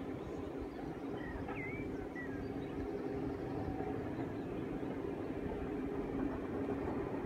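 The Jacobite steam train running: a steady low rumble that grows slightly louder toward the end. A few short bird chirps come between one and two seconds in.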